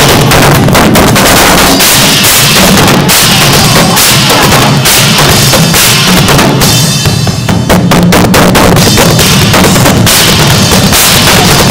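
Drum solo on a DW acoustic drum kit: dense, fast strokes on bass drum, snare, toms and cymbals, very loud, through an iPod's microphone. The cymbals drop back briefly about seven seconds in before the full kit returns.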